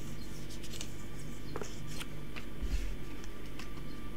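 Faint scattered clicks and light rustles of Yu-Gi-Oh trading cards and a booster pack being handled, over a low background hum.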